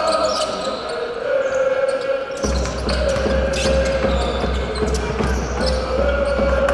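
Basketball game sound in an arena: a ball being dribbled on the hardwood court, with voices in the hall. A low hum comes in about two and a half seconds in.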